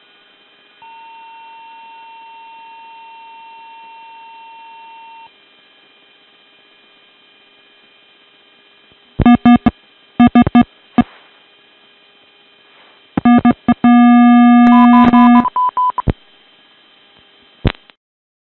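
F-16 cockpit electronic warning tones. A steady high beep runs for about four seconds, then from about nine seconds in come loud clusters of rapid beeping and a held buzzing tone. They sound as the right main landing gear collapses on touchdown and the jet yaws off the runway, and there is a single sharp click near the end.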